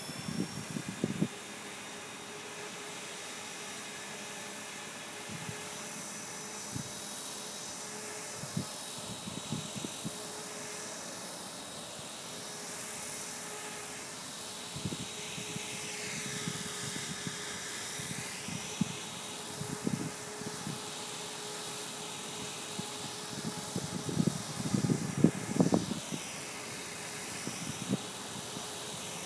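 E-flite Blade 450 electric RC helicopter hovering. Its motor and rotor give a steady high-pitched whine that sweeps down and back up in pitch a couple of times as it drifts, with short bursts of low buffeting coming and going underneath.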